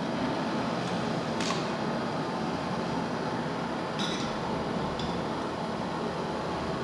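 Steady wind rushing over the microphone, with a few short sharp clicks.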